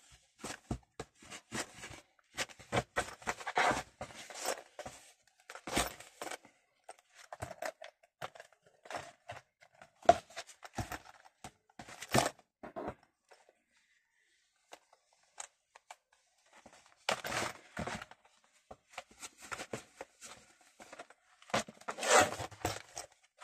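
Glued paper being pressed and smoothed with a bone folder, with paper crinkling: irregular short scrapes and taps, pausing for a few seconds past the middle.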